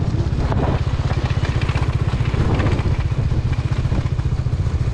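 Motorbike engine running at a steady cruising speed, heard from the pillion seat as a fast, even low pulsing.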